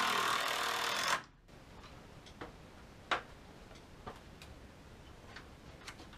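A power drill driving a screw into a wooden top plate, running for about a second and stopping abruptly, followed by scattered light clicks and knocks of wood and tool handling.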